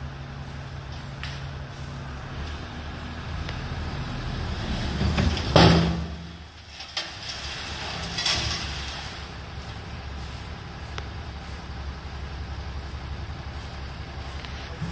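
Tipper truck's engine running steadily with its dump bed raised. There is a sudden loud knock about five and a half seconds in and a smaller one about eight seconds in.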